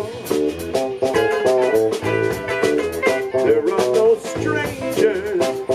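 Live band playing a song, with a steady beat; a voice sings the word "strangers" near the end.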